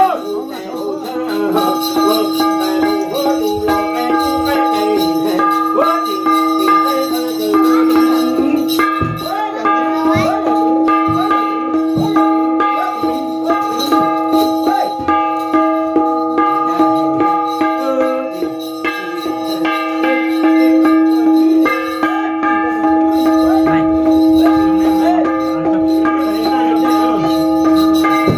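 Hmong shaman's ritual gong beaten in a fast, steady rhythm and ringing on continuously, with the jingle of the shaman's bell rattles and the shaman's chanting voice.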